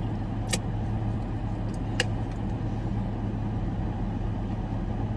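Steady low hum of a parked car idling, heard from inside the cabin, with two brief clicks about half a second and two seconds in.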